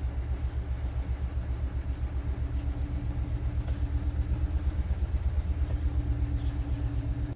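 Steady low rumble of a running motor with a fast, even throb; a faint hum joins about three seconds in, and the sound cuts off abruptly near the end.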